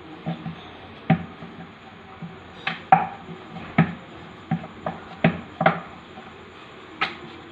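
Wooden rolling pin rolling out dough on a round wooden board, giving about ten sharp, irregular wooden knocks.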